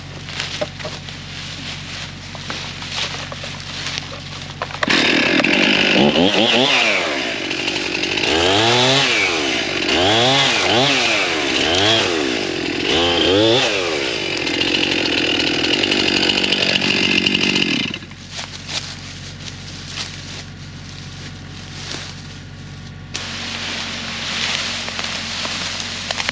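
Two-stroke chainsaw idling, then revved up sharply about five seconds in. The engine speed rises and falls several times before holding steady at high speed, and it drops back toward idle about eighteen seconds in.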